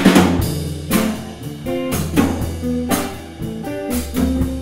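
Instrumental background music with a steady beat, a strong drum hit about once a second over a sustained low bass note and changing chords.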